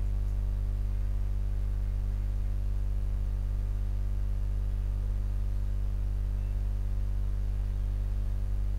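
Steady low electrical mains hum with faint hiss, picked up by the recording setup; nothing else sounds.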